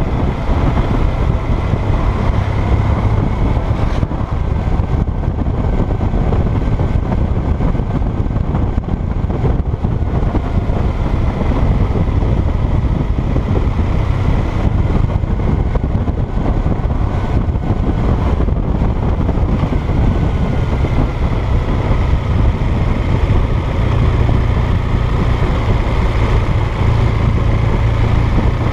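Motorcycle engine running under way on the road, mixed with wind and road noise, its note rising and falling slowly as the speed changes.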